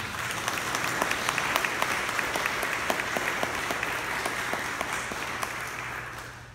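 Congregation applauding steadily with many hands clapping, dying away near the end.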